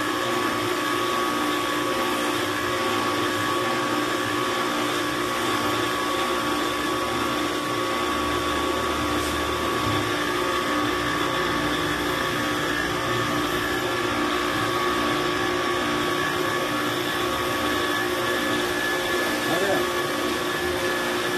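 Kärcher K 3.30 electric pressure washer running steadily with a high, even motor whine, its water jet hissing against a car's body as the dusty car is pre-rinsed.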